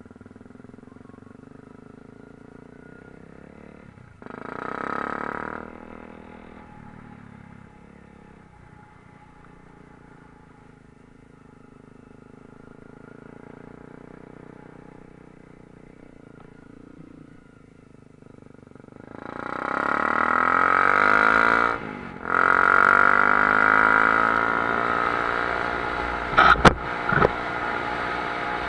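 Motorcycle engine running quietly at low speed, with a short burst of throttle about four seconds in. Near the end it accelerates hard, pitch rising through the revs with a brief dip at a gear change, and two sharp knocks sound shortly before the end.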